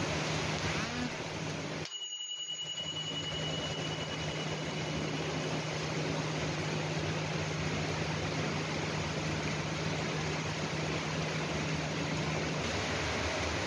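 Heavy rain falling steadily, an even hiss, with a faint low hum under it. The sound briefly cuts out about two seconds in.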